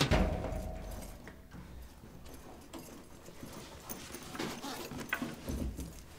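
Footsteps of a person in hard-soled shoes walking quickly across a hard floor in a quiet room, irregular steps in the second half. At the start a loud bang rings out and dies away over about a second.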